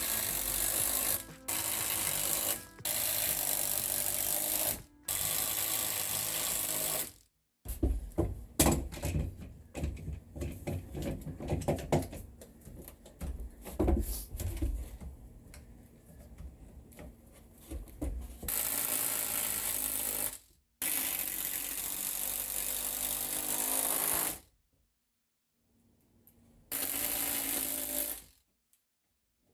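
Power driver running in repeated bursts of a second or more, each starting and stopping sudden, as screws are driven to fasten a sister 2x6 to a ceiling joist. Irregular wooden knocks and rattles fill a stretch in the middle.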